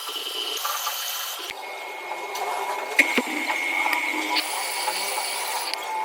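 Metal lathe running with its cutting tool on a metal workpiece: a steady mechanical whine that changes pitch about a second and a half in, with a sharp knock about three seconds in.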